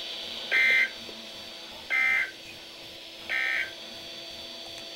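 Emergency Alert System end-of-message data tones from a NOAA Weather Radio broadcast: three short, warbling two-tone digital bursts about 1.4 seconds apart. They signal that the alert message is over.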